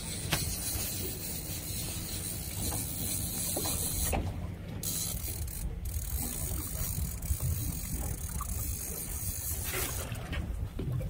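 Fishing reel being cranked with a ratcheting click while a big fish is fought on the line, over the steady low rumble of the boat.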